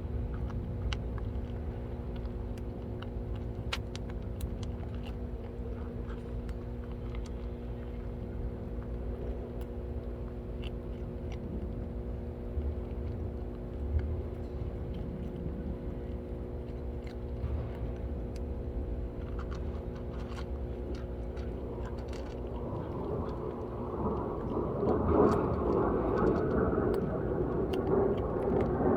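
Cats eating, with scattered small crunchy clicks of chewing over a steady low machine-like hum. A louder rushing noise builds in the last several seconds.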